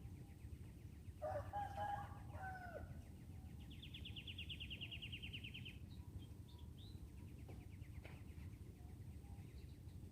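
A rooster crows once, about a second in, a short call ending in a falling note. A fast, high, pulsing trill goes on and off behind it over a steady low rumble of outdoor noise.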